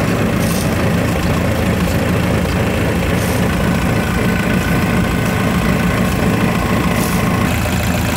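Solé Diesel Mini 40 Td marine inboard turbodiesel, a Mitsubishi-based engine, idling steadily.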